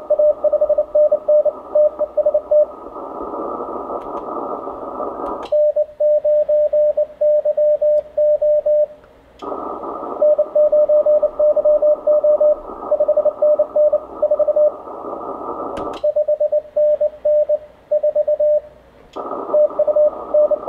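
Morse code (CW) beeps at one steady pitch from an Icom IC-7300 HF transceiver, over band hiss during contest reception. Twice the hiss cuts out with a click and only clean, evenly keyed beeps remain: the radio's sidetone while it transmits computer-keyed CW.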